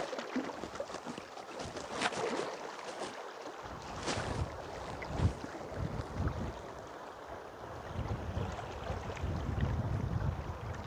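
Wind buffeting the microphone in uneven gusts over the steady rush of river water, with a few brief sharp splashes or knocks about two and four seconds in.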